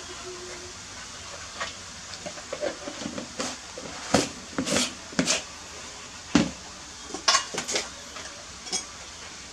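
A metal spoon clinking and scraping inside a plastic tub, with a run of irregular knocks and clatters from kitchen containers being handled, the loudest a few seconds in and again past the middle.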